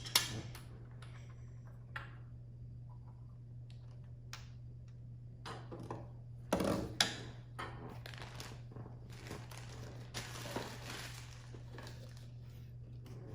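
Plastic toy pieces being handled and set down: scattered light clicks and knocks, with short rustling stretches, one loudest about seven seconds in.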